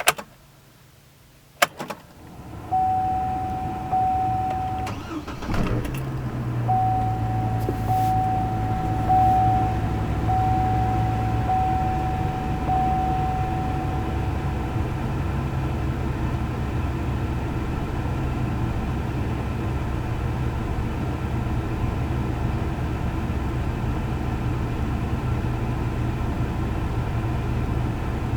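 Chevrolet Colorado pickup being started: a warning chime beeps repeatedly while the engine cranks and catches about five seconds in, then the engine settles into a steady idle that the owner calls rough.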